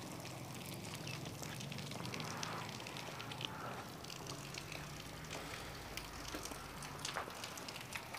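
Footsteps on sleet-covered, slushy pavement: irregular small crackles and clicks, over a faint low hum.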